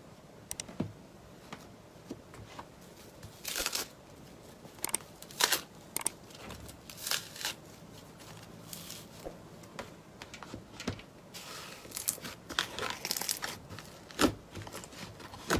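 Irregular crackling and crinkling pops, some in short clusters, as a crunchy material is squeezed and pulled apart by hand.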